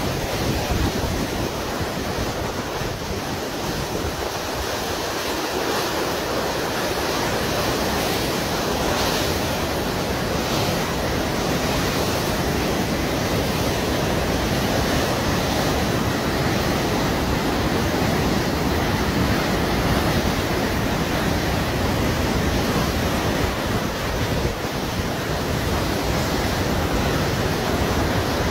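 Steady, continuous rush of a river in flood, its fast-moving water making an even roar, with wind on the microphone.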